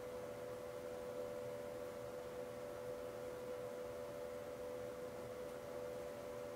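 A steady hum holding two close, unchanging tones, with faint hiss underneath.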